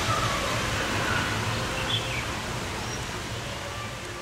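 Heavy monsoon rain falling steadily on trees, an even hiss that grows quieter over the last two seconds. A brief high chirp about two seconds in.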